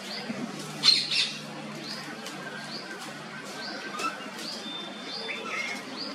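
Birds calling: a short high note, rising then falling, repeated a little under once a second, with a loud harsh squawk about a second in and a few thin whistled notes a little past the middle.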